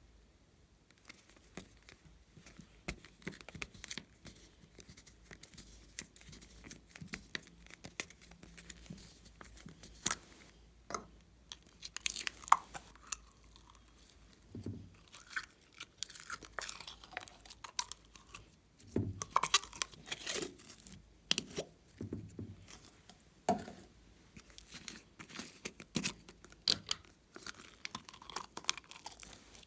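Glossy slime being kneaded and stretched by hand: irregular sticky clicks, pops and crackles, with louder runs of pops about twelve seconds in and again around twenty seconds.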